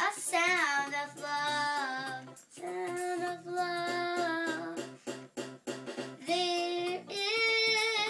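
A young girl singing long held notes, one sliding down near the start, over an electronic keyboard accompaniment with a steady beat.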